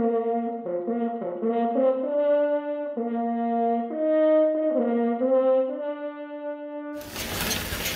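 A short intro tune on a brass instrument, a slow melody of several held notes. It stops abruptly about seven seconds in, and the steady running noise of the model train layout comes back.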